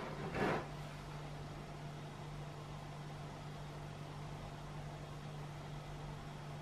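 Steady low hum with a faint hiss, after a short soft noise about half a second in.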